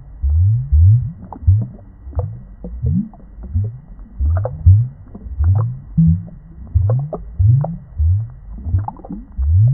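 Aquarium water bubbling and gurgling: a steady run of low bloops, each rising in pitch, about two a second.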